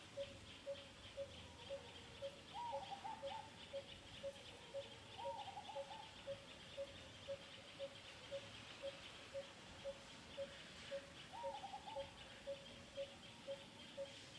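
Faint outdoor wildlife ambience: a low, single-note pip repeated steadily about twice a second, like a bird calling, over a pulsing insect-like buzz. Three short squeaky chirps come about two seconds in, about five seconds in, and near the end.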